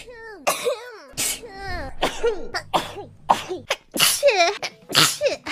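A rapid string of sneezes from different high-pitched voices, cut one after another. Each is a short voiced intake sliding in pitch that ends in a sharp hissing burst.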